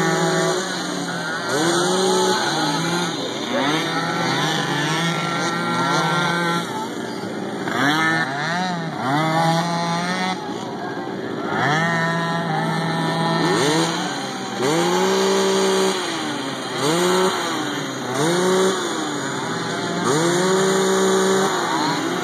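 Several small mini-quad (youth ATV) engines racing, their pitch rising and falling as the riders throttle up and back off around the track, with overlapping revs from more than one machine.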